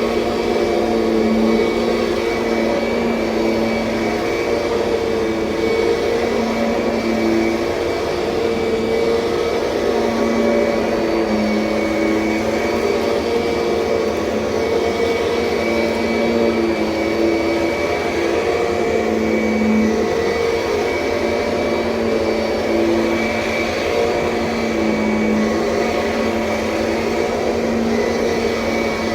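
Kirby Sentria upright vacuum cleaner running steadily, its motor hum swelling and easing slightly every few seconds.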